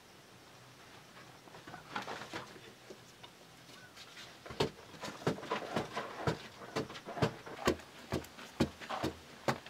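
A wooden digging stick being driven again and again into packed earth, loosening soil in quick repeated strikes about two to three a second, starting about halfway through.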